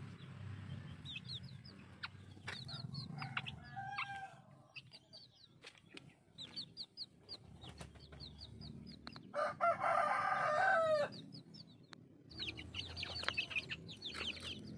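A rooster crows once, loudly, for about a second and a half near the middle, over a steady run of short, high chirps and a few clucks from chickens.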